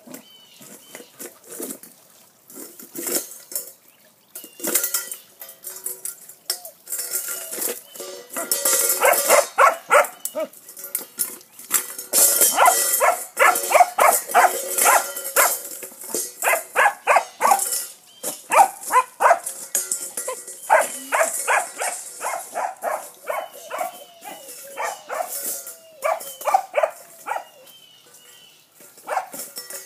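Puppy barking at a rock under his food bowl, in runs of short, rapid barks that come thickest from about eight seconds in until near the end.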